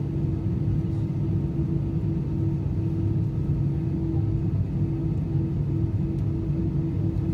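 Airbus A320 cabin noise during a slow taxi: a steady low rumble from the engines at idle, with a steady hum.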